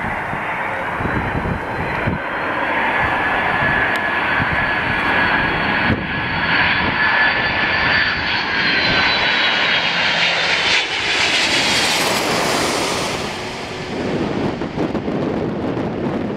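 Boeing 767 airliner's jet engines passing by: a steady rush with a high whine, building to the loudest, hissiest point about twelve seconds in, then fading away.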